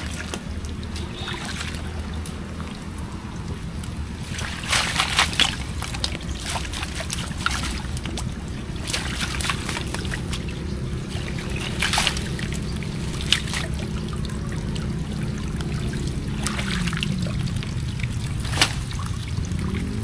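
Water splashing and trickling in several short bursts, over a steady low engine hum.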